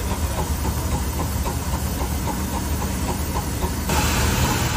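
Russell steam traction engine running, a steady low rumble with a regular rhythmic beat from its working cylinder and motion. About four seconds in a loud steam hiss rises over it.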